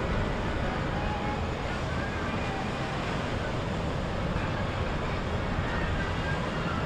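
Steady low rumble of boat engines running under way, mixed with wind and water noise, with faint voices now and then.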